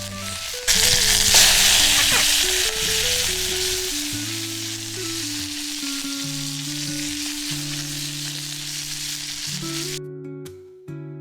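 Meat sizzling in a hot pan for bacon cheeseburgers. The sizzle jumps louder about a second in and cuts off near the end, with guitar music underneath.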